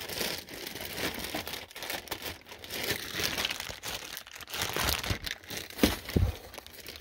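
Handling noise of the Stihl MS290 chainsaw's plastic covers being moved and fitted: irregular rustling and small clicks, with a couple of louder knocks about six seconds in.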